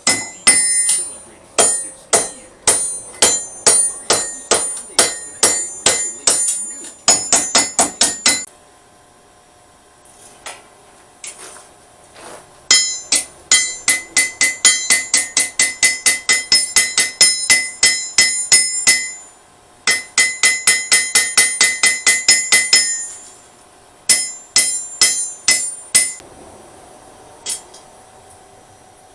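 Hand forging hammer striking steel on an anvil in long runs of ringing blows, about three to four a second. The runs stop for a second or more several times, around eight, nineteen and twenty-three seconds in, then start again.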